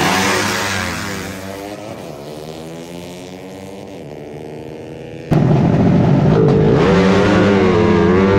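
Drag-racing motorcycle engines revving hard at the launch and pulling away, the sound fading and the pitch stepping as they accelerate. About five seconds in, the sound cuts abruptly to one engine heard up close, loud, its pitch rising and falling with the revs.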